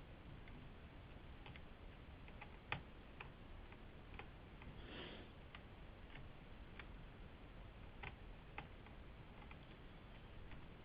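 Faint, irregular small clicks of a Phillips screwdriver working the small screws out of a netbook's case, one click louder about three seconds in. A short soft breathy noise about halfway through.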